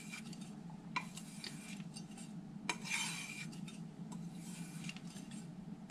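Carbon-steel kitchen knife blade being drawn along a leather strop: faint, soft strokes, with a light knock about a second in and a swish about three seconds in.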